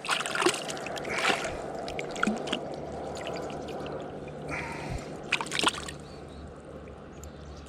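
River water running steadily, with a few short, sharp noises about a second in and again around five and a half seconds.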